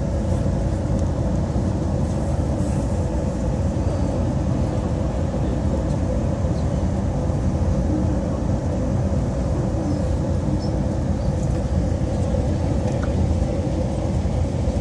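Steady low running noise heard from inside a moving vehicle, without change.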